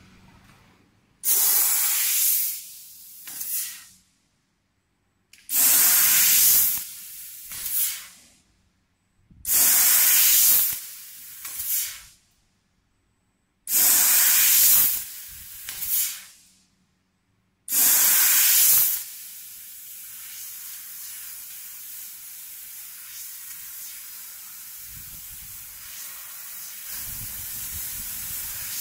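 Assist gas hissing from the cutting head of a fiber laser tube-cutting machine: five loud blasts about four seconds apart, each cutting off after a second and a half and followed by a fainter short puff. From about two-thirds of the way in, a steady, quieter hiss follows.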